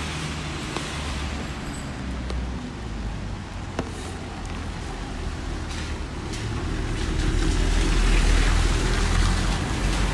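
Traffic on a rain-wet city street: a steady wash of tyre hiss and engine rumble, with a vehicle passing on the wet road that swells to its loudest about eight seconds in and then eases.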